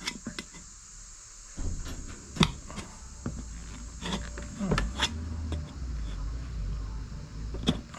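Scattered clicks and knocks of hands working a tubeless tyre onto a lawn mower wheel rim, with a low rubbing rumble starting about a second and a half in, over a steady high chirring of insects.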